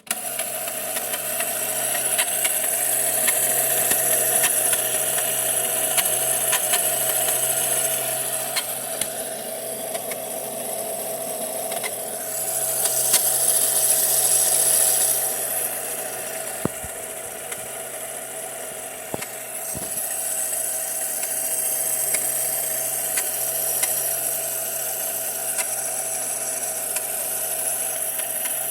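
Piko Sonnette toy washing machine running with a steady mechanical whirr and hum, with scattered clicks and a louder, hissier stretch about halfway through: the weird sounds of the toy machine.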